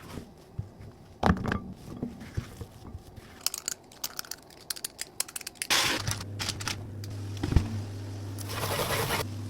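Kitchen handling sounds during baking: scattered clicks and knocks, scraping and crinkling. About six seconds in, a steady low hum starts under them.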